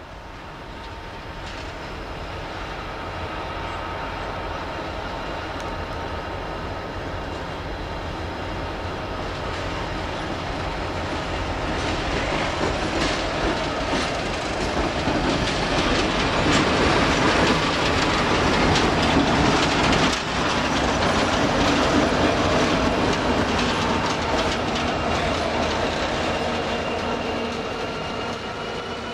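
Grain train hauled by Alco diesel locomotive 703 and FQ03 passing close by: the diesel engines grow louder as the locomotives approach and go past around the middle, then the hopper wagons roll by with a steady clickety-clack of wheels on rail joints.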